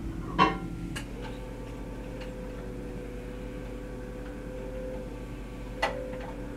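Record-changing mechanism of a 1956 Rock-Ola 1454 jukebox returning a 45 to its magazine after play: a sharp clunk about half a second in and a click a moment later, then a steady mechanical hum as the record is carried back into the rack, and another click near the end.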